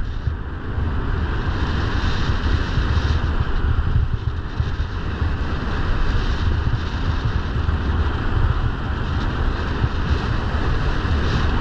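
Steady wind buffeting the microphone of a camera moving downhill, a continuous rumbling rush, with the hiss of sliding over packed, groomed snow.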